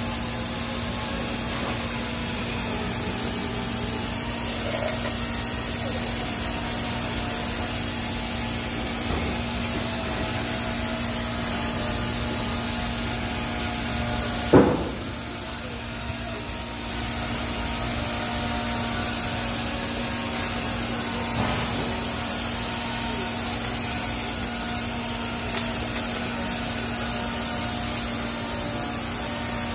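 TIG arc welding the root pass on stainless steel pipe: a steady buzzing hiss with a constant hum. About halfway through there is a sharp click, then a quieter spell of about two seconds before the steady hiss resumes.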